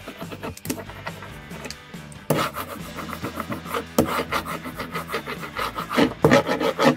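Hand ink brayer rolling printing ink back and forth over a carved woodcut relief, in repeated strokes that grow louder from about two seconds in.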